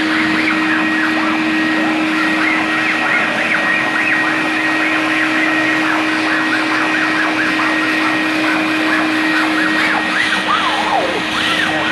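Water-filter vacuum cleaner (upholstery washer-extractor) running steadily, a constant hum under a high whine, with a busy run of short squeaky warbles over the top.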